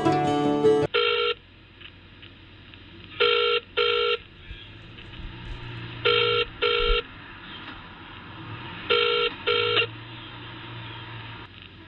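Music cuts off about a second in. A telephone ringing tone follows, heard down the line: pairs of short tones, the British double-ring pattern, repeating about every three seconds over a faint line hum and hiss.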